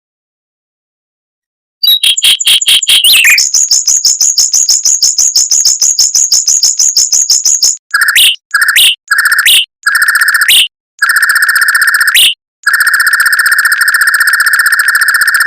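Mockingbird singing fast, close-spaced rolling trills after about two seconds of silence. First comes a long high trill of rapidly repeated notes. Then several short, lower trills each end in an upward flick, and a long steady lower trill runs near the end.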